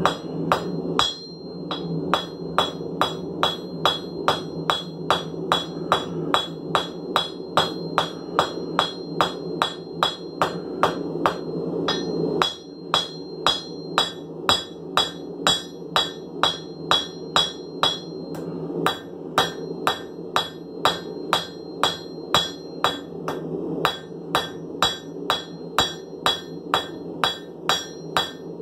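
Hand hammer striking a red-hot steel file on a steel anvil, forging it into a kiridashi blade: steady blows about two to three a second, each with a bright anvil ring.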